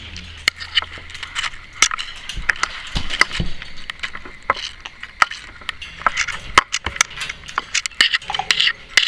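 Timneh African grey parrot bathing in its water bowl: irregular splashing with many sharp clinks and taps against the bowl.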